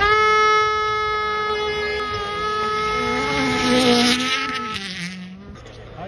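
Rally car engine at high revs, a loud, steady buzzing note that comes in suddenly and holds almost the same pitch for about four and a half seconds, with a rush of gravel and tyre noise building as the car passes close, then the note drops away and fades.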